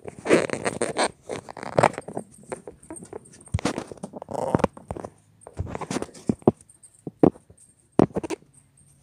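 Handling noise from a phone held close to its microphone: irregular knocks, rubs and clothing rustle as it is moved about and repositioned.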